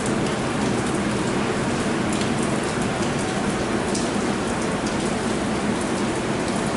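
Steady rain, with now and then a sharp tick of a drop, over a low steady hum.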